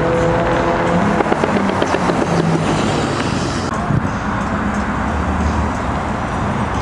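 Cars driving off one after another close by: a steady engine note for about the first second, then a lumpy, pulsing exhaust as a classic American sedan passes, with a short knock about four seconds in.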